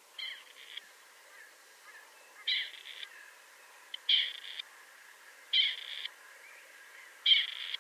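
A male rain quail calling: five short, high calls about one and a half seconds apart, the last the loudest.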